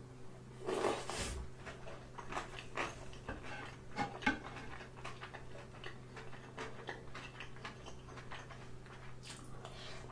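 Close-up eating sounds: a slurp from the spoon about a second in, then wet chewing and smacking with crunches of radish kimchi. A couple of sharp clicks near four seconds in, and a steady low electrical hum under it all.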